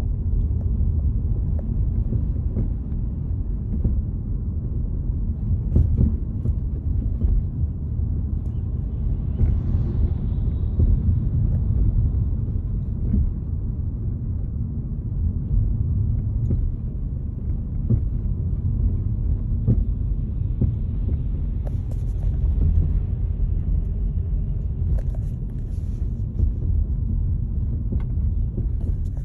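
Steady low road rumble from a Volkswagen Jetta Mk6 on the move, with short knocks now and then, which the owner takes for a knock in the rear suspension.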